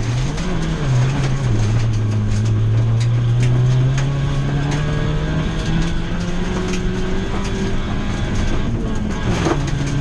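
Ford Fiesta V1600 rally car's 1.6-litre engine heard from inside the cabin, pulling hard on a gravel stage. Its pitch climbs steadily over several seconds in a high gear, dipping briefly near the end, with scattered sharp ticks of gravel striking the car.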